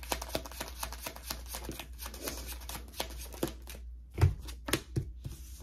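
A tarot deck being shuffled by hand: a rapid, dense run of card flicks and rustles, then a few separate louder taps in the last couple of seconds.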